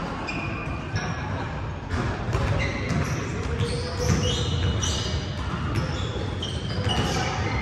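Basketballs bouncing on a hardwood gym court during a pickup game, with short high squeaks from players' sneakers among the repeated thuds.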